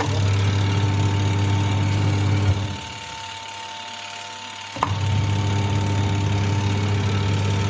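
Washing machine spin-dryer motor running with a steady hum. It cuts out about two and a half seconds in, and about two seconds later switches back on with a click and runs steadily again.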